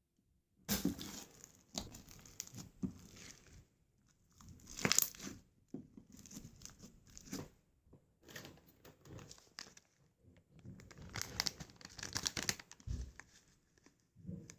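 Hands squishing, pressing and stretching slime, giving irregular bursts of crackling and popping sounds that start about a second in, the loudest about five seconds in.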